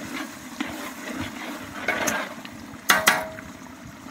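A metal spoon scraping and knocking against a large steel cooking pot as a thick chicken and chickpea curry is stirred. It clanks twice about three seconds in, ringing briefly, over the steady bubbling of the simmering curry.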